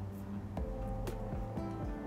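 Soft background music: held notes that change pitch every so often, with a light tick about once a second.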